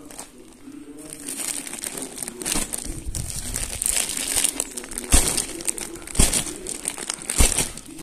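A plastic sack crinkling and rustling as sawdust is pressed and packed into it by hand, with three dull thumps a little over a second apart near the end.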